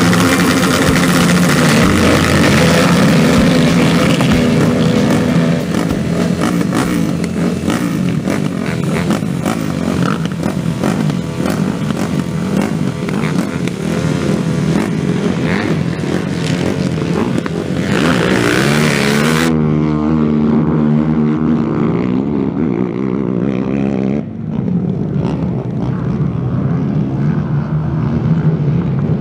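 A pack of racing ATVs running at high throttle, engines revving loudly, with the pitch sweeping up and down as the quads accelerate and pass. The sound changes abruptly about two-thirds of the way through and again a few seconds later.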